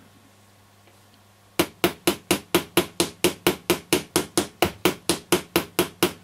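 Steel screwdriver shaft tapping rapidly and evenly on the metal can of an old AF116 germanium transistor: about twenty sharp taps, four or five a second, starting about a second and a half in. The transistor is under current, and the taps are meant to shake loose the tin whiskers inside it.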